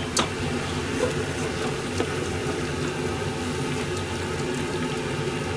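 Pans simmering on lit gas burners: a steady hiss and hum, with a sharp clink just after the start and a couple of faint knocks.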